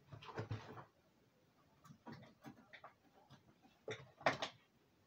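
Clicks and knocks of small objects being handled and set down: a short clatter at the start, a few light ticks around two seconds in, and two sharp knocks near the end, the second the loudest.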